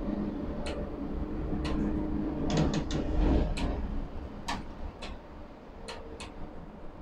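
Overhead crane hoist running with a steady hum and low rumble while it lifts a ladle of molten steel; the hum dies away a little over three seconds in. Sharp clicks sound about once a second throughout, with a quick cluster just before the hum stops.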